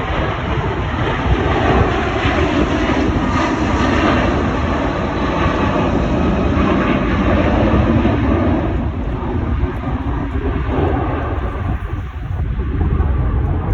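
Jet airliner engines at takeoff power: a loud, steady roar with a deep rumble, easing off a little after about nine seconds.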